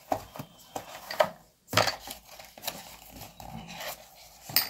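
Small clicks and rustling from objects being handled, with a longer stretch of rustling in the middle and a sharper click near the end.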